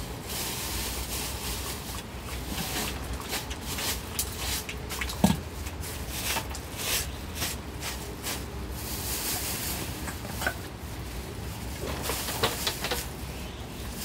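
Dog eating from a bowl: irregular crunching clicks, over a steady hiss of monsoon rain.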